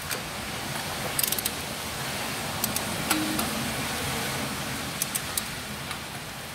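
Scattered sharp metallic clicks and clinks of hand tools and a bolt being handled, with a short run of clicks about a second in, over a steady hiss.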